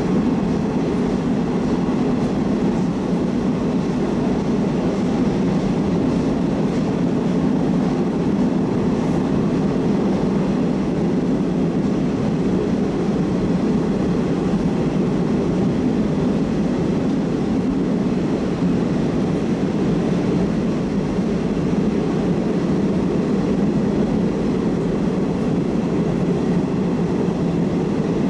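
Moscow metro train running at steady speed between stations, heard from inside the car: an even rumble of wheels and running gear that does not change.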